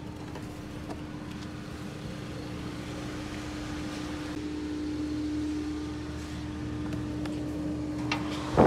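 Steady mechanical hum holding one pitch, like a vehicle or air-conditioning unit running, with a short burst of loud knocks and rattles near the end.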